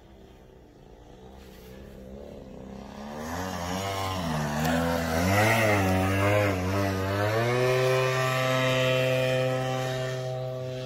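Engine of a radio-controlled Piper Cub model plane flying past. It grows louder from about two seconds in, its pitch wavers up and down as it passes, and it settles to a steady note for the last few seconds.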